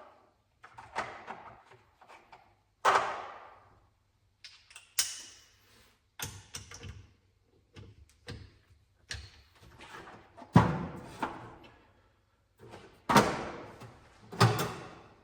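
Irregular knocks and clunks of metal tools and engine parts being handled and set down during an engine bottom-end teardown, about a dozen separate strikes, the loudest about ten and thirteen seconds in.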